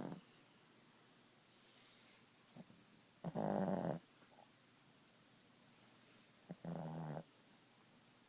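Boston terrier snoring in its sleep. The tail of one snore is at the very start, then two more snores follow about three seconds apart, each under a second long, with faint breathing between them.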